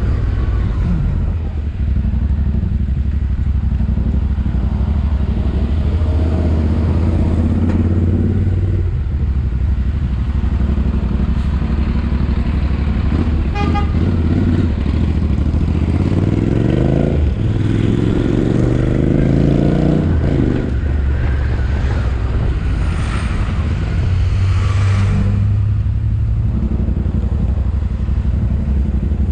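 Royal Enfield Interceptor 650's parallel-twin engine and exhaust running under way, the engine note climbing twice in a row a little past halfway as the bike accelerates. A brief horn-like toot sounds about halfway through.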